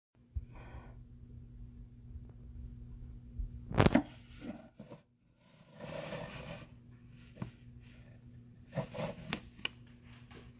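Steady low electrical hum, with one loud knock about four seconds in and a few sharp clicks near the end.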